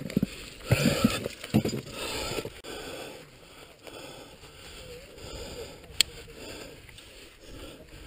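An ice climber breathing hard, with clinks and scrapes of climbing gear against ice and rock, loudest in the first couple of seconds, and one sharp click about six seconds in.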